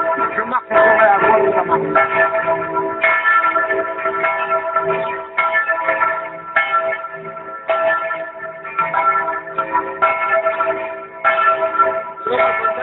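Church bell ringing, struck again about once a second, each stroke ringing on into the next.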